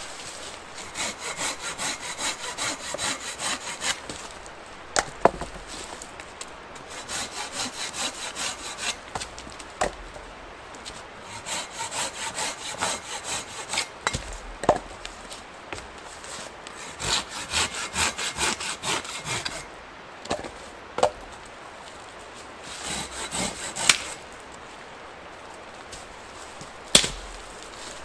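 Folding pruning saw cutting dead branches by hand: bursts of rapid back-and-forth strokes a few seconds long, with single sharp woody knocks between the bursts.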